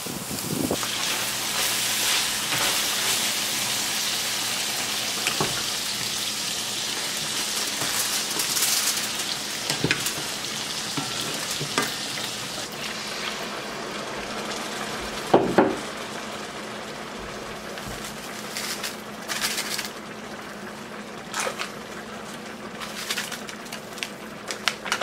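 Meat frying with a steady sizzle, with clinks and knocks of utensils against the pans and one louder knock about halfway through. The sizzle eases over the last few seconds.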